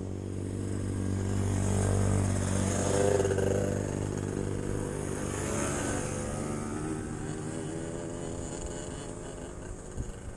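Vehicle engine running steadily, growing louder over the first two or three seconds and then slowly fading.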